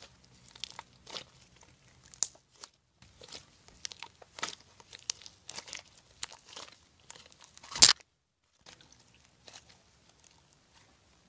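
White slime squeezed and kneaded by hand, giving irregular crackling and crunchy pops. The loudest crackle comes a little before eight seconds in, and the handling is softer after that.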